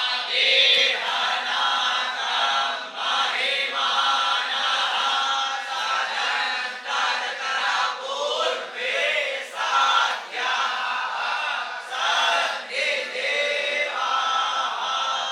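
Group of young Vedic pathshala students (batuk Brahmins) chanting Sanskrit mantras together in unison, in short phrases with brief breaks between them.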